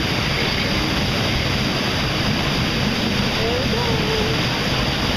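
Steady rushing of river-ride water around a raft, even and unbroken, with faint voices briefly audible about three and a half seconds in.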